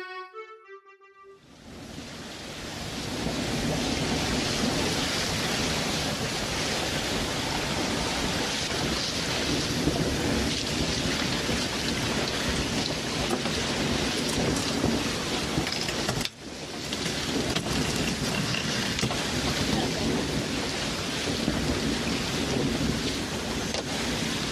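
A piano outro ends about a second in, and a steady rushing noise with a low rumble, like rain, fades in and runs on, breaking off for an instant about two-thirds of the way through.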